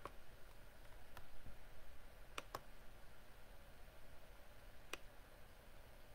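Computer mouse clicking: a few single clicks and a quick double click about two and a half seconds in, over a faint low hum.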